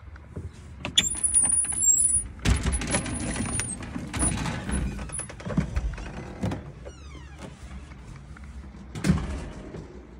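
Screen door and wooden front door being opened and handled: latch clicks about a second in, a thin high squeak, a stretch of rattling and scuffing, then a knock about nine seconds in.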